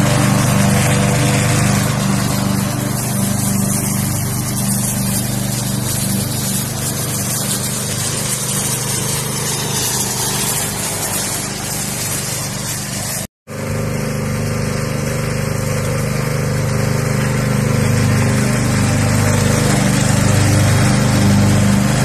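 Stiga ride-on lawn tractor's engine running steadily as it drives, a constant engine hum; it breaks off for a split second about thirteen seconds in.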